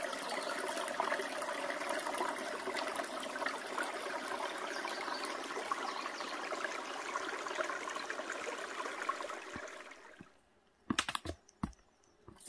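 Small mountain stream babbling and trickling over rocks, a steady water sound that fades out about ten seconds in, followed by a few faint clicks.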